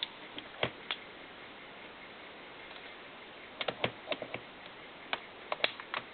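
Small metal clicks and taps of rifle parts being handled and pushed into place during reassembly of a Colt M4 .22LR carbine. There are a few at the start, a quick cluster around the middle and a few more near the end.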